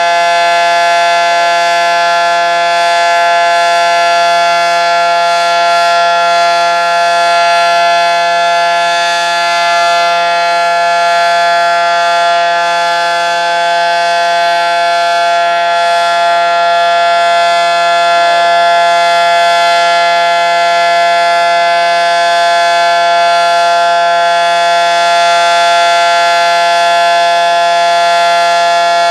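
Federal Signal SD-10 outdoor warning siren sounding a steady, loud tone that holds one pitch throughout, as in a routine siren test.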